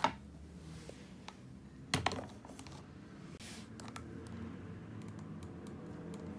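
A few light clicks and a sharper knock about two seconds in, from a stainless electric kettle being lifted and handled before pouring over a coffee dripper.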